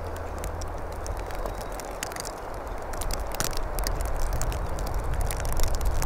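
A shovel and a rake working wet mud on snowy ground: soft scraping with many scattered crackling clicks, over a steady low rumble.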